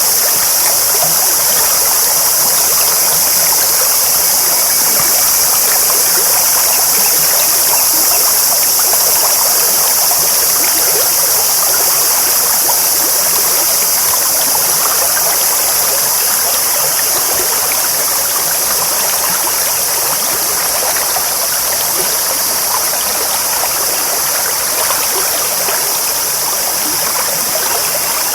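Clear stream babbling: a steady, dense rush of flowing water with fine splashing that does not change.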